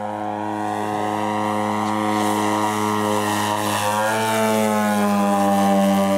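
37% scale Ultimate aerobatic biplane's engine and propeller running steadily in flight, growing louder as it comes in low. About four seconds in its pitch rises a little, then slowly falls as it goes by.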